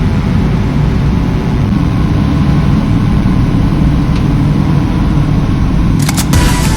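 A steady, loud low rumble of noise with no clear pitch, with music coming in near the end.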